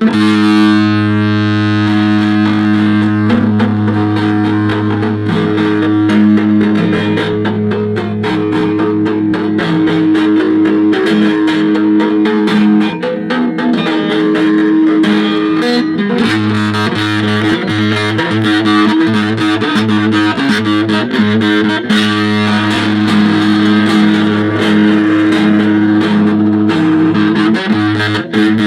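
Instrumental music: an electric guitar played through a distortion effect, with sustained low notes under dense strumming, coming in abruptly.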